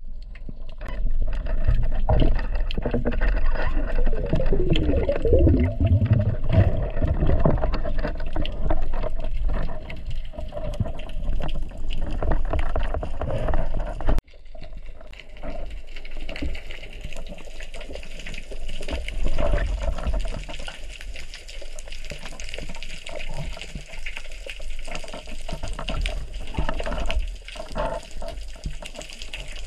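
Underwater water noise picked up by a submerged camera: churning water with many knocks and clicks, then, after a sudden break about halfway, a steadier, quieter wash of moving water.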